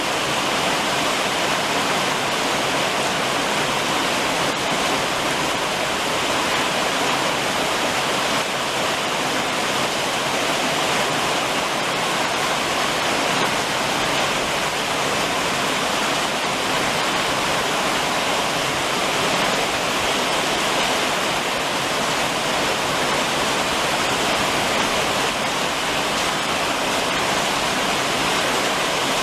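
Summer rain falling steadily on a roof, a dense, even rush of water with no breaks.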